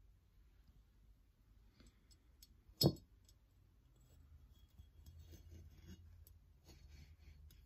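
A single sharp knock, then light clicks and soft rubbing as hands handle and turn a painted ceramic figurine on a craft mat.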